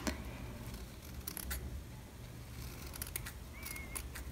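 Scissors snipping at ribbon to trim it: a few quiet, separate snips over a low room hum.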